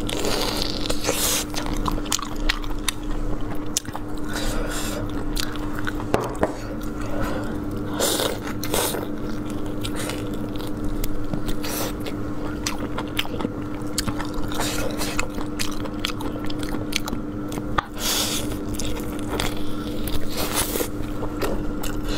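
Close-miked mouth sounds of a person biting and chewing stuffed lamb tripe parcels: a steady stream of short smacks and clicks, over a constant low hum.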